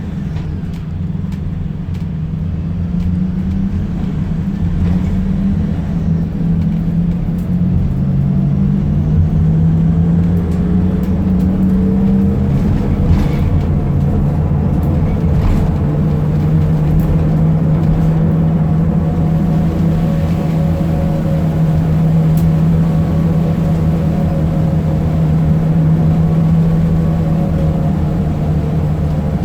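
Fiat Ducato minibus driving, its engine running with a steady pitched drone that shifts in pitch in the first dozen seconds, then holds level. Fainter higher tones drift upward over the drone in the second half, part of the strange turbo noise from a failing turbocharger.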